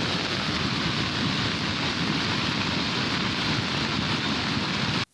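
Steady, even rushing noise of water, cutting off suddenly near the end.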